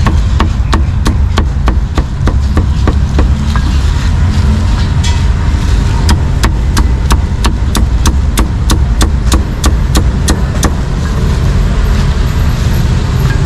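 Meat cleaver chopping meat on a chopping block in a quick, even rhythm of about three to four strokes a second. The strokes pause for a couple of seconds a little after the start, resume, and stop near the end, over a steady low rumble of street traffic.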